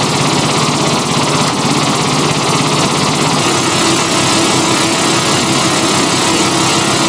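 Black MIDI playback: a huge number of synthesized notes sounding at once and merging into a loud, steady wall of noise-like sound. About three and a half seconds in, the low notes shift to a new pitch.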